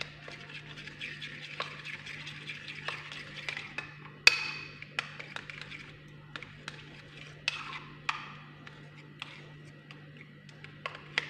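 Metal spoon stirring and scraping round a white bowl, working thick Vaseline into an egg-and-lemon mixture, with repeated light clicks of the spoon against the bowl. There is one sharp ringing clink about four seconds in and another a few seconds later. A steady low hum lies underneath.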